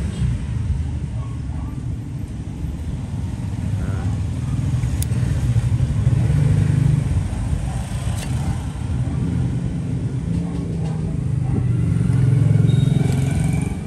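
Road traffic passing by: a steady low rumble of engines that swells twice as vehicles go past.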